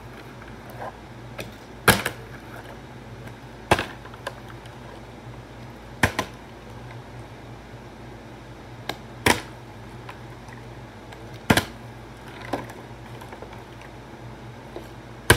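Partly filled plastic water bottle tossed in bottle-flip attempts, knocking down on a hard floor about every two seconds, six times.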